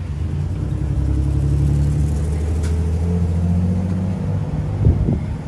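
A motor running with a steady low hum that rises slightly in pitch, then two sharp knocks near the end.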